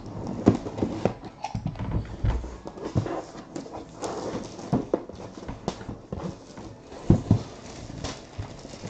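Plastic shrink wrap crinkling and tearing as it is stripped off a cardboard box, with irregular knocks and thumps of the box being handled; the loudest thumps come about half a second in and about seven seconds in.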